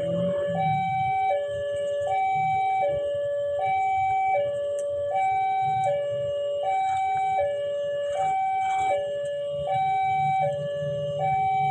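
Railway level crossing warning alarm sounding a steady two-tone pattern, a higher and a lower note alternating about every three-quarters of a second, warning that a train is approaching. A low engine rumble runs underneath.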